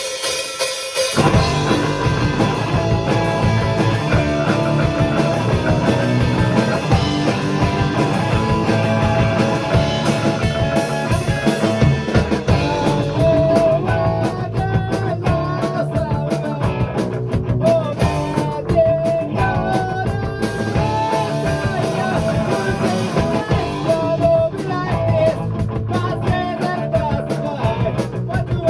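Punk rock band playing: electric guitars, bass and drum kit come in together about a second in and carry on at full volume, with a sung melody over them.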